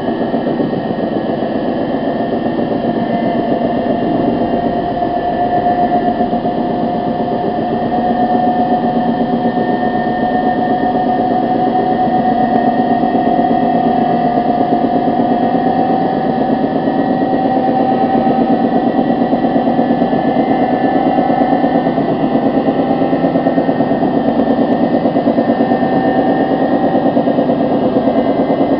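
Washing machine running: a steady motor hum with a fast, even churning rhythm and a whine that rises slightly in pitch during the first half.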